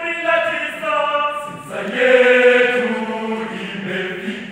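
Boys' choir singing a Swahili song in several parts, holding sustained chords; a louder, fuller chord comes in about two seconds in.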